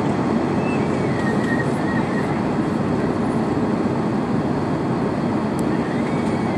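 Steady rushing drone inside an airliner cabin: jet engines and airflow, deepest and loudest in the low range, holding an even level throughout.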